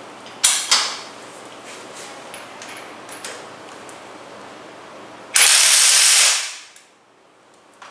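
ZIPPTORK cordless impact wrench hammering for about a second as it drives a flange bolt, then stopping. Two sharp metallic clicks come about half a second in, before it runs.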